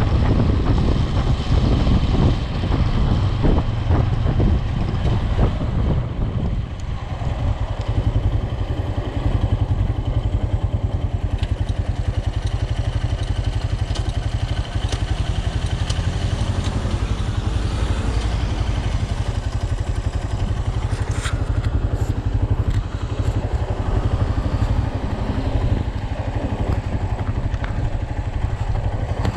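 A motor vehicle's engine running steadily on the move, with a strong low rumble throughout; the sound eases briefly about six seconds in.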